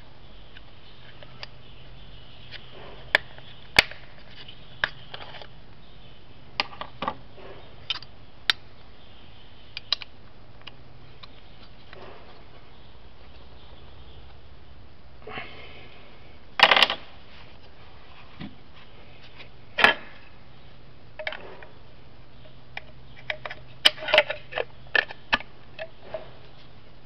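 Scattered clicks, clacks and knocks of a Bosch GST 10,8 V-LI cordless jigsaw being handled. Its plastic housing, aluminium base plate, stored hex key and dust-extraction adapter knock and snap as they are adjusted and fitted. The saw's motor is not running.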